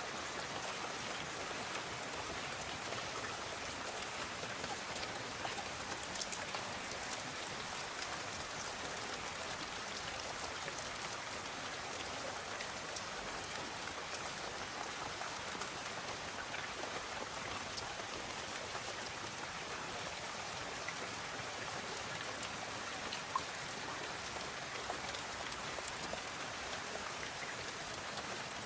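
Steady rainfall, a dense patter of many fine drops hitting surfaces, with no wind or thunder. A few slightly louder single drops stand out, one about 23 seconds in.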